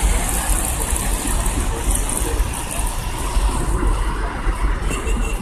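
Traffic on a busy city street: cars passing, heard as a steady rumble and hiss.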